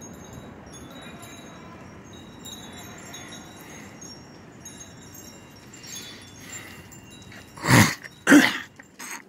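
Wind chimes tinkling faintly and irregularly in the breeze. Near the end come two loud, brief rustling noises, then a softer third.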